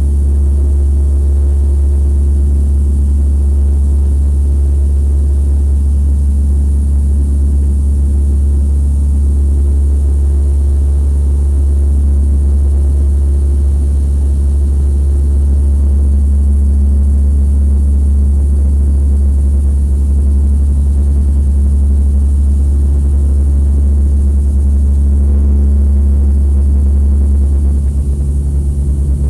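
Airliner cabin noise in flight: a loud, steady low drone of the engines and propellers with a few steady tones riding on it. Near the end the tone shifts slightly and the level dips a little.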